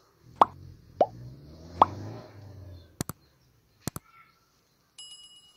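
Subscribe-button animation sound effects: three quick bubbly pops, then two mouse-style clicks, and a bell chime starting near the end.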